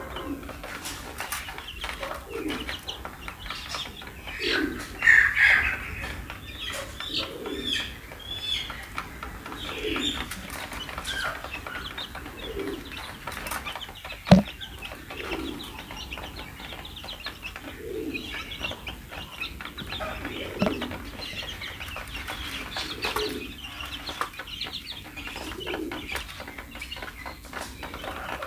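A flock of two-week-old chicks peeping continuously while they peck at grain in a plastic feed tray, with fine tapping from their beaks. A low call repeats about every two and a half seconds under the peeping. A single sharp click comes about halfway through.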